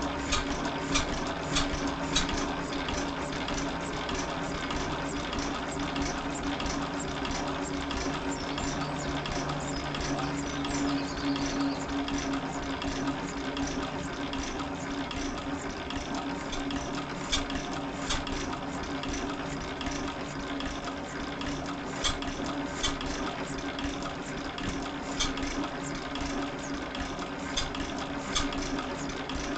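1911 Gardner No.1 stationary engine running steadily, a low hum with sharp clicks about once or twice a second.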